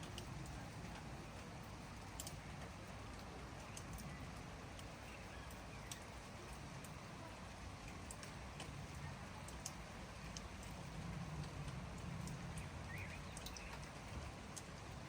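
Steady light rain with scattered sharp ticks of individual drops landing, and a faint short bird chirp about thirteen seconds in. A low rumble swells briefly around eleven to thirteen seconds in.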